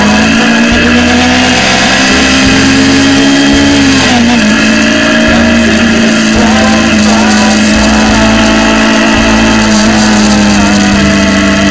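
Motorcycle engine running at a steady riding speed. Its pitch rises in the first second or so and drops about four seconds in, over wind rumble on the camera microphone.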